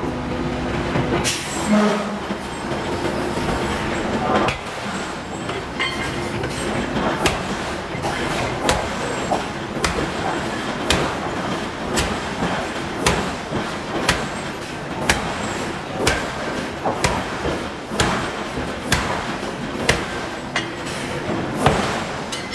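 Hydraulic forging hammer striking hot steel, a few separate blows at first and then a steady run of blows about one a second, over a steady machinery hum.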